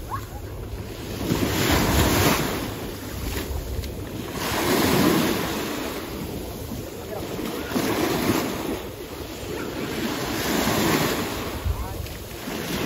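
Wind buffeting the microphone over small waves in shallow sea, a steady rush that swells and eases every few seconds.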